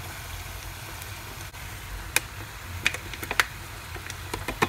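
Sharp plastic clicks and taps as a plastic tray of diced cooked ham is shaken and knocked against a stainless steel pot to empty it, a few scattered from about two seconds in and coming faster near the end, over the faint sizzle of the pan.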